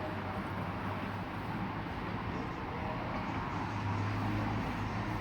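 Steady low hum over even background noise, with no distinct events.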